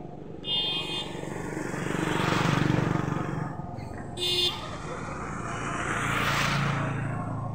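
Two road vehicles passing one after the other, each swelling up and fading away, over a steady low hum. Two short high-pitched beeps sound, one about half a second in and one about four seconds in.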